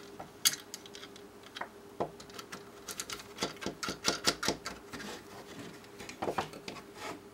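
Irregular small metal clicks and taps as an M8 nut and washer are fitted by hand onto a threaded rod, with the metal parts knocking against the mount.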